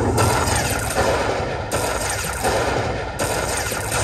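High Stakes Lightning Cash slot machine playing its crackling electric sound effects while it tallies the chip values won in the free spins, with a fresh burst about every one and a half seconds.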